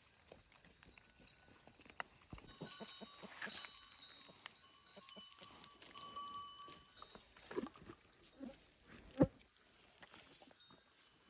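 Goats bleating and shuffling about, with scattered knocks and one sharp thump about nine seconds in.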